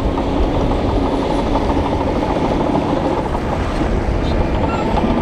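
Shantui crawler bulldozer running steadily under load as it pushes dirt and rock with its blade, the diesel engine working and the steel tracks clattering.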